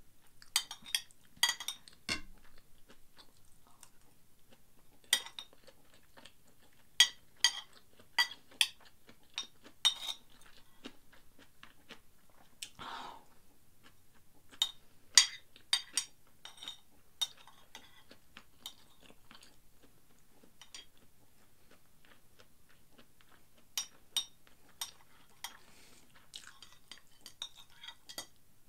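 Metal spoon clicking and clinking against a ceramic plate in quick runs of taps as fried rice is scooped up, with quiet chewing between the runs.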